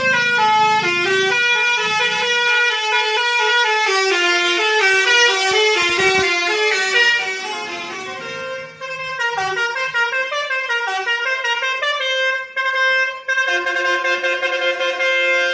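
Basuri telolet air horns on tour buses playing melodic note runs, with several tunes sounding over one another. The notes step quickly at first. From about halfway they turn into longer held notes with short breaks.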